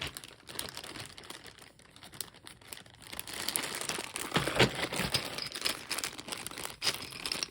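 Plastic packaging crinkling and rustling as board game components are unpacked by hand, with light clicks of small pieces. It gets busier about halfway through.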